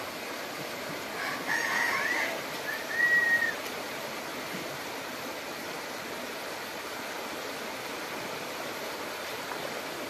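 A rooster crows once, starting a little over a second in and ending on a held high note, over a steady background hiss.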